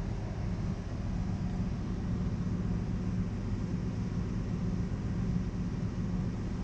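Steady low drone of a ship's engine-room machinery, with an even hum and hiss and no change in level. The running diesel generators, the started starting-air compressor and the main engine's auxiliary blower all feed into it.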